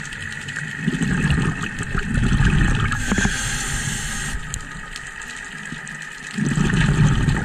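Underwater sound of a scuba diver breathing through a regulator: exhaled bubbles rumble in surges three times, with a high hiss of an inhale a few seconds in.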